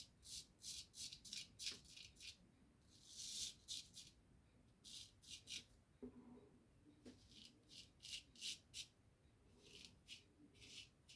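A razor scraping through lathered stubble in runs of short, quick, faint strokes, with brief pauses between the runs.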